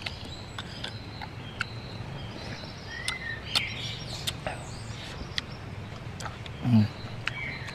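Scattered sharp clicks and crackles over steady low outdoor background noise, with a short bird chirp about three seconds in and a brief low vocal sound from a man near the end.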